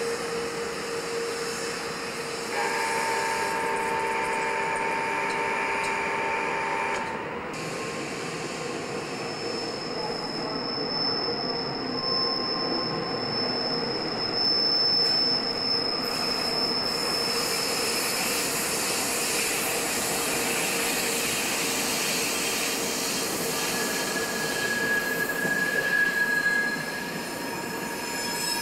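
Electric locomotive-hauled passenger trains moving through the station, their steel wheels squealing against the rails. The squeal holds steady shrill tones that change pitch several times over a running rumble.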